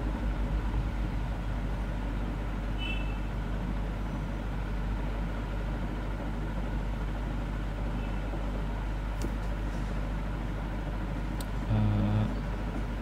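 Steady low rumble and hiss of background noise, with a brief voice murmur near the end.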